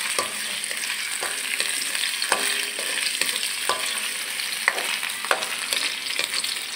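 Sliced onion and garlic sizzling in hot oil in a metal wok at the start of a sauté, with a spoon scraping and knocking against the pan as they are stirred, several times over; some knocks leave a brief ring from the wok.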